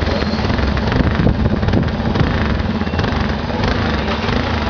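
Yamaha Teneré 250 single-cylinder engine running steadily through a Coyote two-way aftermarket exhaust tip, a loud, even low exhaust rumble.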